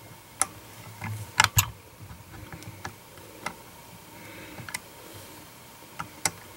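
Scattered sharp clicks and light taps from hands and tools working a fly held in a fly-tying vise. They come at an uneven pace, with the loudest pair about a second and a half in.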